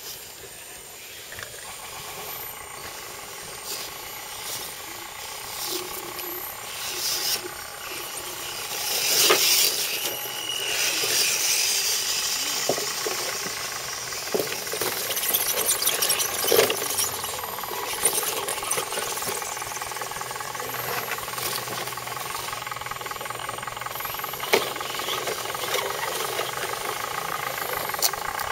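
Electric motors and geared drivetrains of radio-controlled scale crawler trucks whining as they climb over rocks, with scattered clicks and knocks of tyres and chassis on stone. A louder rushing hiss comes in around nine seconds in and fades by about twelve.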